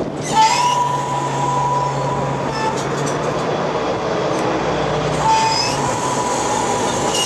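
Fishing vessel's deck machinery running with a steady low hum, and a high metallic squeal twice, each held about two seconds.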